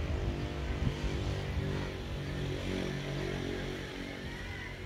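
A motor engine droning steadily at an even pitch.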